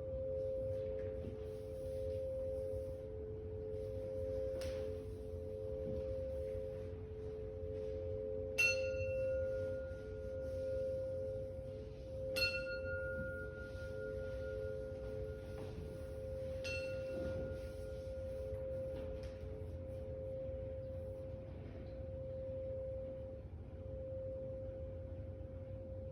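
Tuning-fork chime bars ringing: two low tones hang on the whole time with a slow, regular pulsing swell. A higher bar is struck three times, about a third, halfway and two-thirds of the way through, and each strike rings out with bright overtones before fading.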